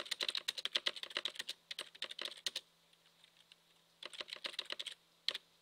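Fast typing on a computer keyboard: a run of keystrokes for about two and a half seconds, a pause, another short run about four seconds in, and a single keystroke near the end.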